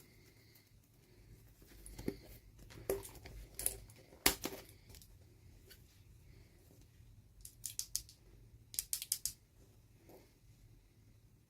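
Toy packaging being opened by hand, with sharp clicks and snips. A few single clicks come in the first half, then two quick runs of clicks in the second half.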